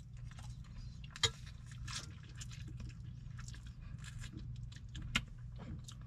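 Metal fork and spoon clinking and scraping against ceramic plates while eating, with a few sharp clinks, the clearest about a second in and near the end, over a steady low hum.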